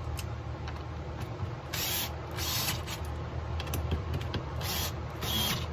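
Cordless screwdriver with a Torx bit driving the handle-kit screws into a chainsaw, in four short bursts about two and four seconds in, over a steady low hum.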